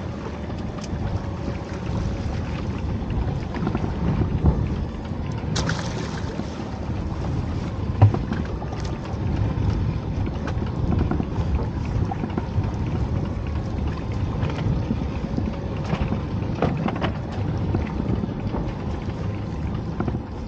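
Small fishing boat underway: a steady rush of wind on the microphone and water along the hull, over a faint engine hum. A few sharp knocks, the loudest about eight seconds in.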